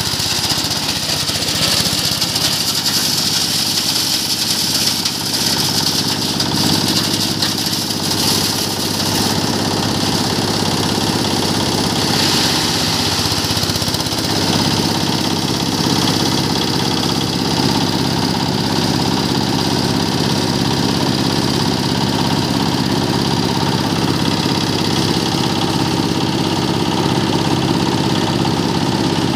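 Branch and twig chopper machine running steadily under its stationary engine, shredding leafy branches fed into the hopper: an even engine beat under a loud hiss from the chopping blades.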